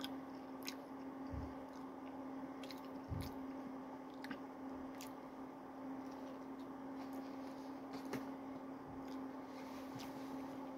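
A person chewing and biting into a barbecue burger with onion rings, with wet, squishy mouth sounds and scattered small clicks, over a steady low hum.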